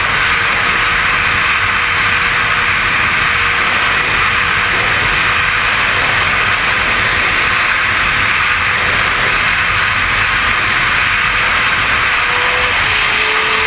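Steady wind and road rush on a motorcycle-mounted camera's microphone while riding at a constant speed, with a faint engine note underneath that drops in pitch near the end.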